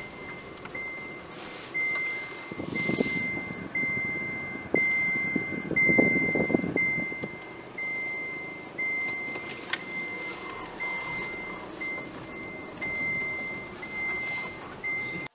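A vehicle's reversing beeper sounding a steady high beep about twice a second, over a low rumble of the moving vehicle.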